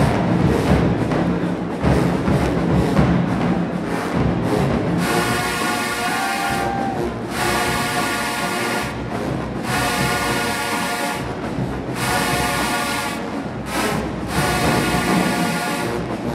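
HBCU marching band: drums and percussion for about five seconds, then the brass section comes in with held chords cut by short breaks.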